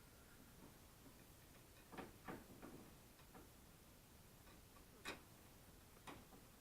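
Near silence with a handful of faint, short clicks and taps from hand tools and steering parts being handled, a cluster of three about two seconds in and two more later, the sharpest about five seconds in.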